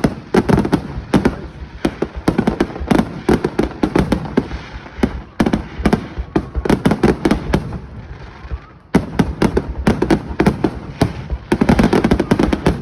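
Fireworks display: dense, rapid volleys of bangs and crackling shell bursts, many a second, easing briefly just before a sudden loud burst about nine seconds in.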